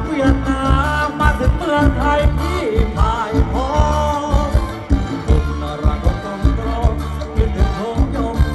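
Live band playing Thai ramwong dance music over a PA: a voice singing a gliding melody over a steady drum and bass beat.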